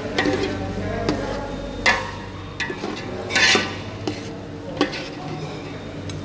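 A metal spoon stirring chicken pieces and tomatoes in a large metal pot, scraping and clinking against the pot's sides and bottom in short strokes about every 0.7 seconds; the loudest scrape comes about three and a half seconds in.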